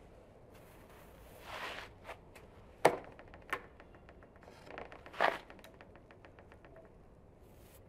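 Hands working the mortar joints of firebricks: a few sharp taps and short scrapes, the loudest tap about three seconds in, followed by a quick run of faint ticks.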